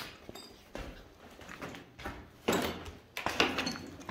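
Irregular scuffs and crunches of footsteps on a gritty, debris-strewn floor, the loudest about two and a half seconds in and again about a second later.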